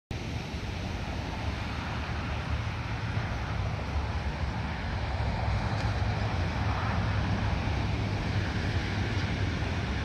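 Gentle ocean surf washing on the shore, a steady wash without distinct wave breaks, with wind rumbling on the microphone.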